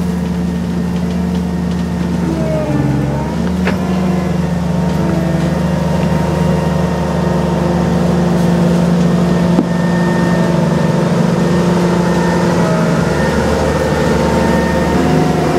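John Deere 2254 Hillmaster combine harvester's engine running steadily, its pitch dipping briefly about three seconds in before picking back up, with a couple of faint knocks.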